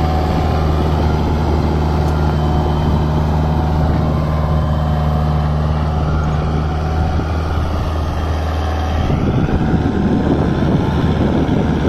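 Kubota MU4501 4x4 tractor's four-cylinder diesel engine running steadily under load, pulling an 11-tine cultivator through soil without strain or wheel slip. About nine seconds in, the steady engine note gives way to a rougher, noisier rumble.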